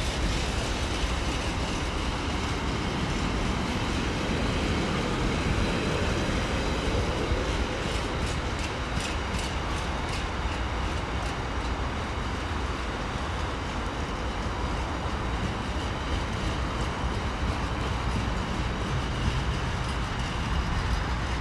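Long freight train of mostly empty container flat wagons rolling past: a steady rumble of wheels on rail, with a run of quick clicks about eight to ten seconds in.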